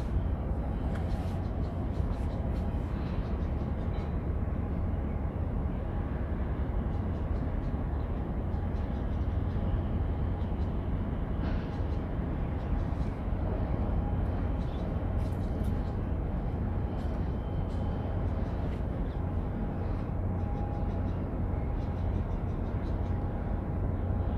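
Steady low rumble of outdoor harbour ambience with a faint constant hum.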